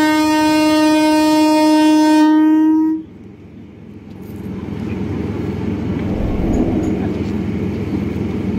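Indian local train's horn sounding one long, steady, single-pitched blast that cuts off suddenly about three seconds in. A low rumble then builds from the train.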